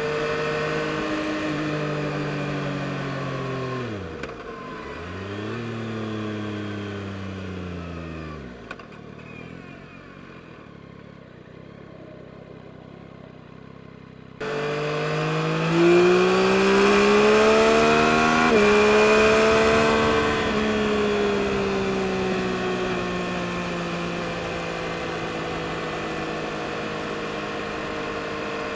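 2022 Yamaha MT-09 SP's three-cylinder engine slowing down twice with falling pitch, then running low and quiet for several seconds. About halfway through it jumps abruptly louder and accelerates with rising pitch, changes gear once and settles into a steady cruise.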